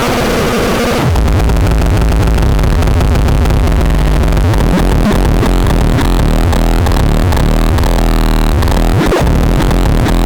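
Loud electronic music, with a heavy bass line coming in about a second in.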